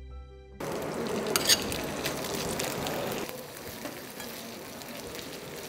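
Soft background music cuts off about half a second in, giving way to diced vegetables and meat sizzling in a stainless steel frying pan on a burner. A couple of sharp clicks come at about a second and a half. The sizzle drops quieter about three seconds in.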